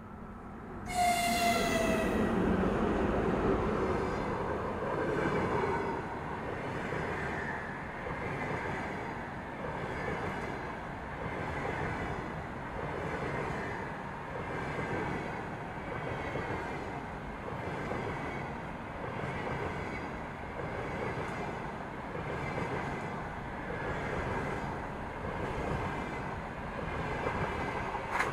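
2ES4K electric locomotive sounding its horn about a second in, the tone sliding slightly down in pitch as it passes. Then the long passenger train of double-deck coaches rolls by, a steady loud rumble of wheels on rail that swells and dips about every two seconds as each coach goes past.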